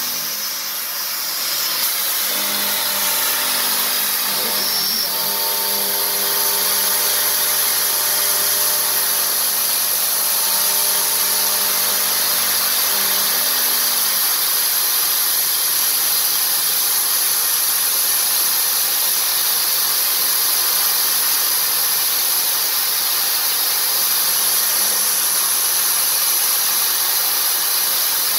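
CNC vertical machining center milling a metal block with an end mill: a steady high-pitched spindle whine over a continuous cutting hiss. A set of lower hums drops out about halfway through.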